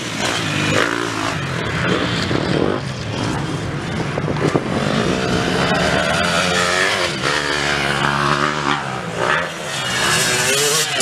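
Motocross dirt bike engines revving on the track, their pitch rising and falling with the throttle.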